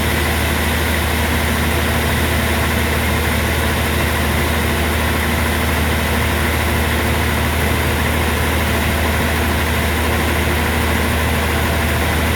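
Sawmill machinery running steadily: a constant low engine hum with an even hiss over it, holding the same pitch throughout with no cuts or changes.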